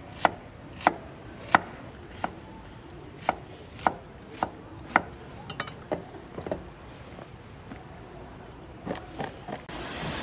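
A knife chopping food on a cutting board: sharp, regular chops about every half-second, turning lighter and more scattered after about five seconds, with a few more chops near the end.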